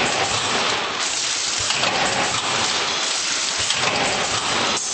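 Vertical form-fill-seal packaging machine running, heard as a steady, even noise.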